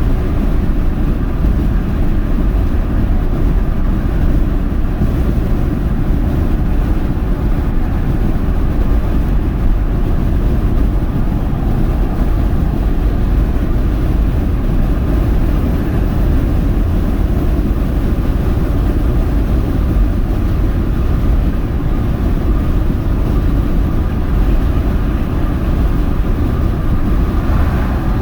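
Steady low rumble of road and wind noise inside the cabin of a 2022 Mercedes-AMG GLA 35 cruising at highway speed with its panoramic roof open.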